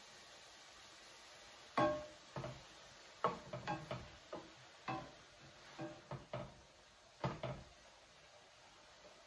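A serving spoon stirring lentils and vegetables in a stainless steel sauté pan: about a dozen clinks and knocks of the spoon against the pan, each with a short metallic ring, the loudest about two seconds in.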